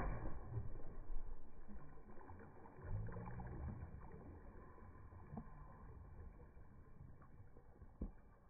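A splash dies away at the start, then water sloshing and lapping in an inflatable above-ground pool as a child swims underwater. Two faint knocks near the middle and near the end.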